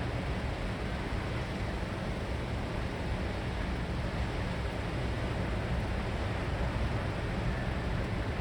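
Typhoon storm noise: a steady, unbroken hiss of wind and weather with a low rumble underneath.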